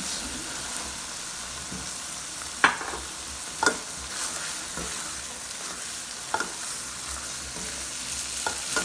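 Spinach masala sizzling steadily in a wok as boiled chickpeas are tipped in and stirred with a spatula, which scrapes through and knocks sharply against the pan about five times.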